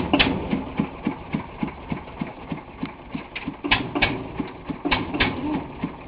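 Homemade tractor's single-cylinder engine idling with an even, slow thumping beat of about four firings a second, with a few sharp clacks over it.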